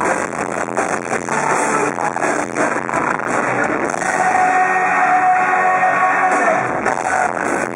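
Live rock band playing with drums and a held vocal line, recorded from the crowd, so the sound is loud and distorted with the upper treble cut.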